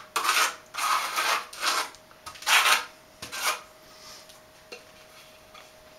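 A notched steel trowel scraping mastic across the back of a floor tile in about five short rasping strokes, which stop about three and a half seconds in.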